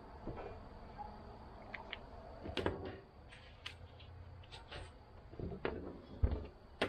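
Light handling noise: scattered clicks and taps as a paper template, a marker and a sheet of perforated steel are moved about on a plastic wheelie-bin lid, with a dull thump and a sharp click near the end.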